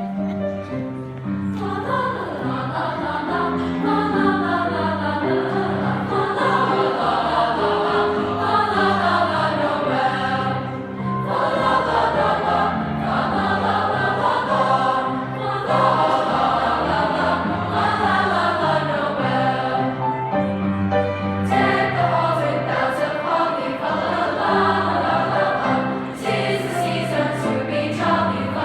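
Junior high show choir singing a Christmas song in parts.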